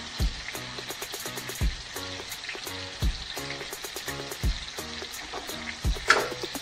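Whole black sea bass frying in a skillet, a steady sizzle, under background music with a deep beat about every second and a half. A short sharp sound near the end.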